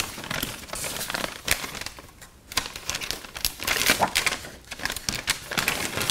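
Brown paper bag crinkling and rustling as it is opened and rummaged through, with loose sheets of paper being handled, in irregular crackly strokes with a short lull about two seconds in.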